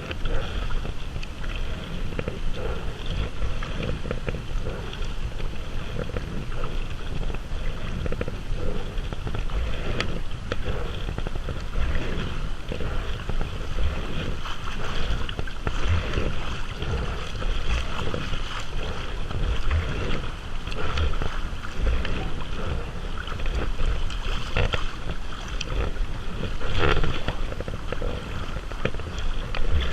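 Water splashing and lapping around a kayak under way on a river, with wind rumbling on the microphone.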